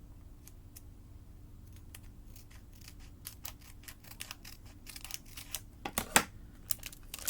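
Scissors snipping through a foil booster-pack wrapper, with the foil crinkling. The snips and crackles start sparse and grow denser and louder over the last few seconds.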